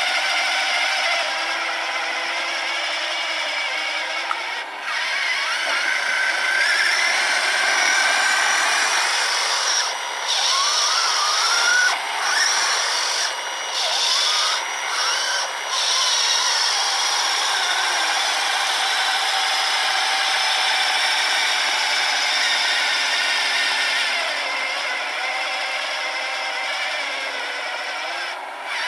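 Small electric motors of an RC truck and its 3D-printed snowblower running: a steady whir with a faint whine that wanders in pitch. The sound dips briefly several times between about ten and sixteen seconds in.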